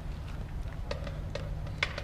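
Light, sharp clicks or taps, about two a second and slightly uneven, over a steady low rumble; one sharper click near the end.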